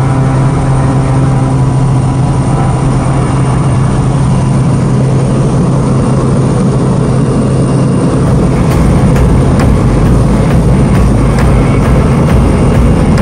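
Piper M500's Pratt & Whitney PT6A turboprop at takeoff power, heard from inside the cabin as a loud, steady propeller drone through the takeoff roll and climb-out. It grows a little louder from about eight seconds in, with short crackles over the drone.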